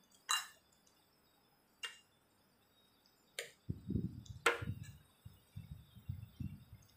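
Plastic fork and knife clicking against a plate, four sharp clicks a second or more apart. In the second half, dull low knocks and rubbing as food is cut on the plate.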